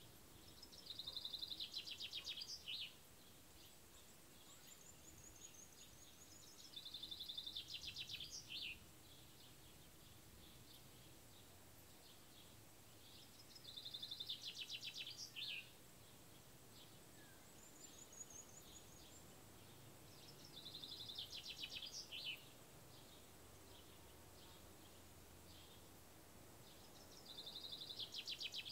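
A songbird repeating the same short song five times, about every seven seconds: a fast trill ending in a quick falling flourish. A fainter, higher falling whistle from another bird comes twice in the gaps.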